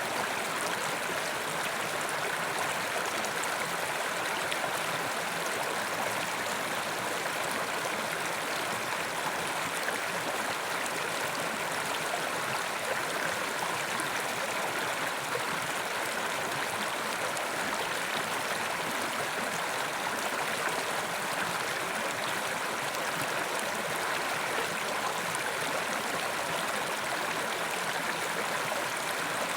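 Carpathian mountain river flowing: a steady, even rush of water.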